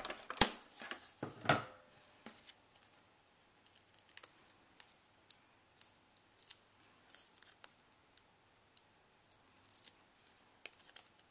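Paper-crafting handling sounds: a few sharp clicks and scrapes in the first two seconds as a plastic adhesive container is handled, then faint scattered ticks and rustles of cardstock as foam adhesive squares are fixed to the back of a cardboard heart.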